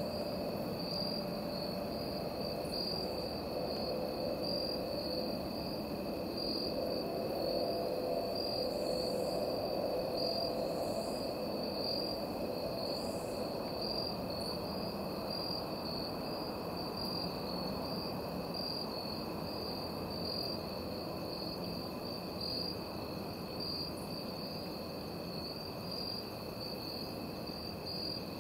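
Evening chorus of crickets and other insects: a steady, pulsing high trill with a second steady lower tone beneath it.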